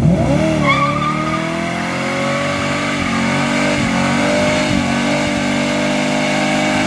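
Hot rod coupe's engine revving up hard and held at high revs through a burnout, with the revs dipping briefly twice. The rear tyres spin and squeal on the asphalt.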